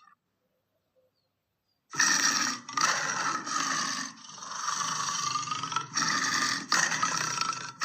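Lion roar and growl sound effect, starting suddenly about two seconds in after a silence and going on in several long bouts with brief breaks.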